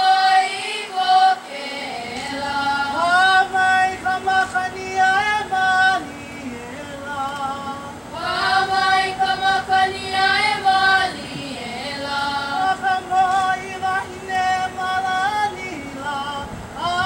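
A group of girls singing a Hawaiian song together, in long held phrases with short pauses between them.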